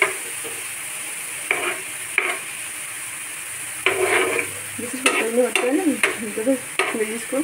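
Steel spoon scraping around a frying pan, stirring diced onion, capsicum and tomato, over the steady sizzle of the vegetables frying in oil. The strokes are separate at first, then come in a quicker run in the second half.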